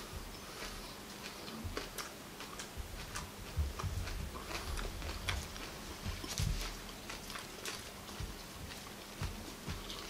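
Close-up chewing of a mouthful of raw agati (Sesbania grandiflora) flowers: irregular soft crunches and wet mouth clicks. Near the end the flowers on the tray are handled and pulled apart.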